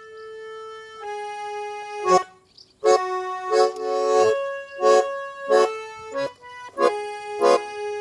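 Garmon, a Russian button accordion, playing a tune: held chords at first, then, after a short break about two and a half seconds in, rhythmic chords with regularly accented strokes.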